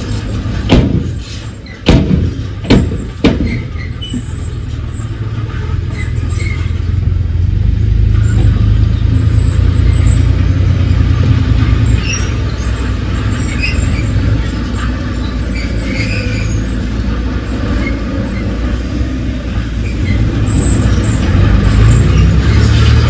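Heavy diesel earthmoving machinery running, a deep steady engine rumble that swells louder a couple of times as it works. There are four or five sharp metallic knocks in the first few seconds.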